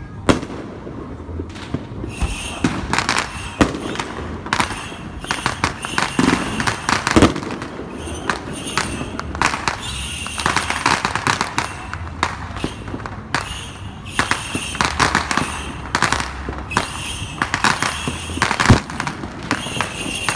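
Fireworks and firecrackers going off without a break: dense rapid strings of sharp cracks and pops with heavier bangs among them, the loudest bang near the end.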